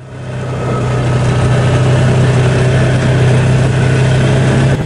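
Vehicle engine running steadily with a low hum as it drives along a dirt road, fading in over the first second.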